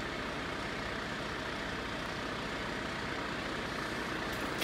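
Steady low rumble of a large vehicle's engine idling, under a constant street hum.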